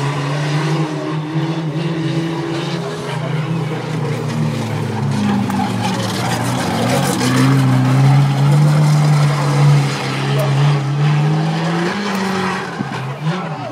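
Banger racing cars' engines revving on the dirt track, their notes rising and falling over several seconds.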